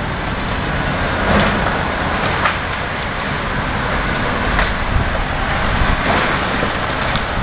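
Heavy demolition machinery running steadily, with a few light cracks and knocks of debris breaking.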